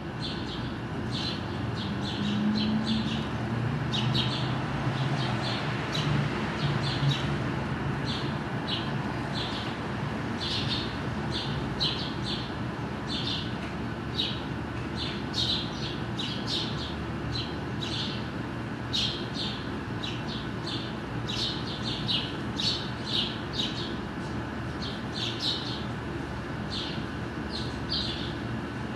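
Small birds chirping over and over in quick bunches, high-pitched, over a steady low background hum.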